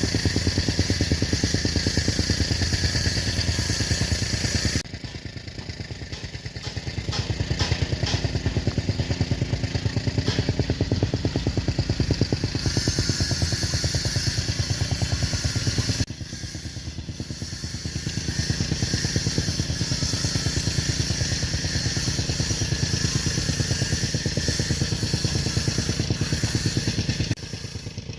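Engine of a heavy construction machine, an excavator or bulldozer, running steadily. Its loudness and tone change abruptly about 5 s, 16 s and 27 s in.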